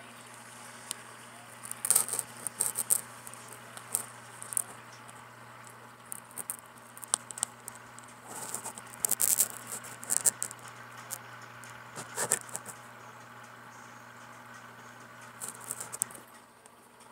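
Steady low hum of running aquarium equipment such as an air pump, with irregular bursts of sharp clicks and rattles several times over.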